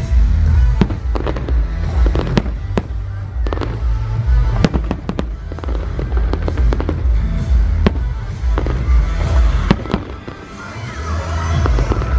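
Fireworks display: a string of sharp bangs from bursting shells at uneven intervals, with a dense crackling near the end, over loud show music with a heavy bass.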